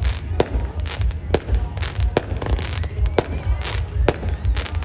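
Aerial fireworks going off, a rapid, irregular run of sharp bangs and cracks, about two to three a second, as rockets launch with sparking tails and burst low in the sky.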